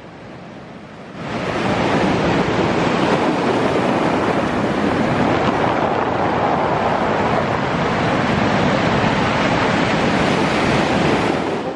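Ocean surf breaking and washing up a pebble shore: a steady rushing of water that jumps much louder about a second in and stays loud.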